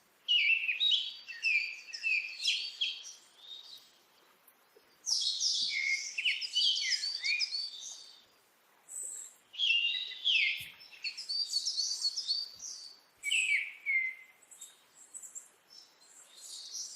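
Small birds chirping and twittering in four bouts of a few seconds each, rapid high notes with short falling sweeps, with quiet gaps in between.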